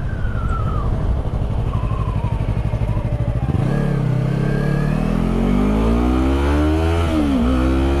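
Yamaha R3's parallel-twin engine under way, revs climbing steadily from about halfway through, dropping sharply at an upshift near the end and climbing again. Low wind rumble on the helmet microphone runs underneath.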